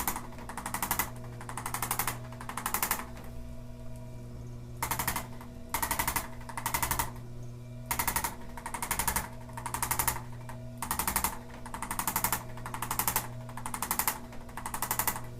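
Handheld percussive instrument rapidly tapping on the patient's back in short bursts of about half a second, roughly one burst a second, with a pause of about two seconds near the start.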